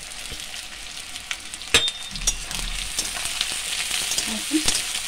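Sliced onions sizzling in hot oil in a metal kadai while a spatula stirs and scrapes them, with clinks of the spatula against the pan and one sharp clink about two seconds in. The sizzle grows louder over the last couple of seconds.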